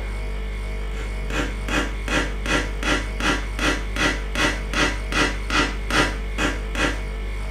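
A regular rasping pulse, about fifteen strokes at two to three a second, starts about a second in and stops near the end, over a steady low hum.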